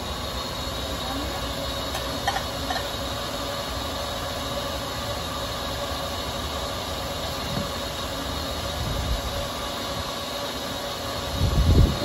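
Countertop blender motor running steadily on a seven-minute programmed cycle, blending champurrado hot, with a steady whine through it. A loud low thump near the end.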